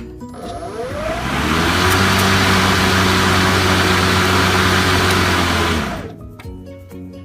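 Greenworks PRO 80V cordless lawn mower's electric motor and blade spinning up with a rising whine, running at a steady hum with a loud rush of air from the blade, then shutting off about six seconds in.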